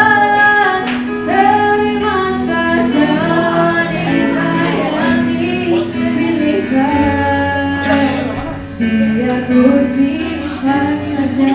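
A woman singing into a microphone with live band accompaniment, holding long notes that glide and waver in pitch.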